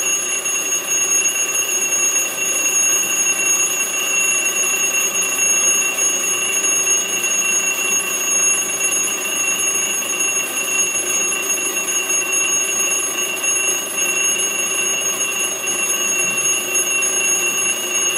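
Wind-up alarm clock ringing loudly and without a break, a steady high-pitched ring that starts abruptly.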